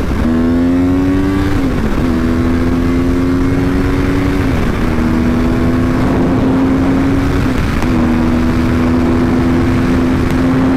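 2014 Yamaha R1's crossplane inline-four engine under hard acceleration, heard through a helmet-mounted microphone. Its note climbs a little in each gear and breaks briefly at each upshift, about three times, every two to three seconds.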